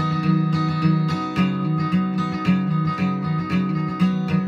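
Acoustic guitar strummed with a pick, chords at about two strums a second in the instrumental close of a country song, with no singing.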